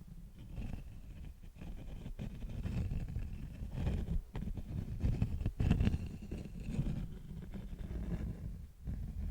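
Beeswax handled close to the microphone: continuous rubbing and crinkling with scattered small clicks, heavy in low rumble, louder around the middle.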